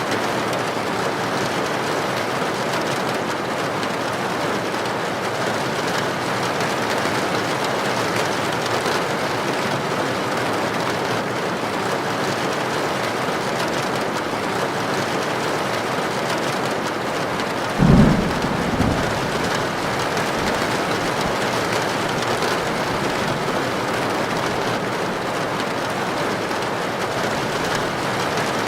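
Heavy rain drumming steadily on a tin roof. About two-thirds of the way through comes one short, deep clap of thunder, with a smaller one a second later.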